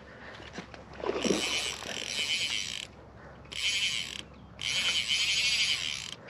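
Fly reel's ratchet drag buzzing in three bursts of about a second each as line runs through it, with a trout hooked on the rod.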